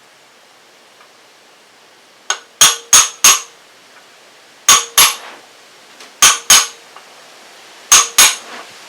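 Hammer tapping a pulley installer tool to start a power steering pump pulley onto its shaft: sharp metal-on-metal strikes that ring briefly, in groups of two or three about every second and a half.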